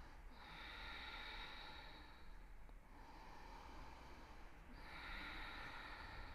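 A woman's slow, audible breathing while holding a yoga pose: three long, hissing breaths of about two seconds each, faint, over a low steady room hum.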